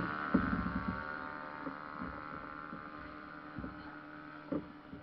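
Ultralight trike engine idling with a steady hum that slowly grows fainter, with a few light knocks about half a second in and near the end.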